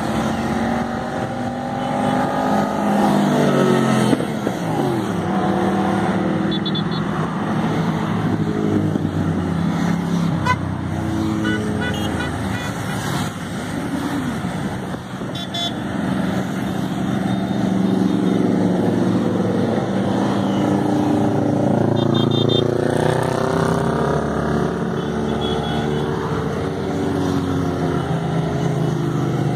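A stream of motorcycles riding past one after another, the engines overlapping in a continuous drone. Individual bikes' engine notes drop in pitch as they go by.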